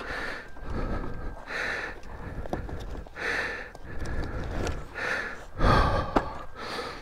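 A rider breathing hard into a helmet microphone after a hard climb, in heavy breaths about every one and a half to two seconds. A heavier knock comes near the end.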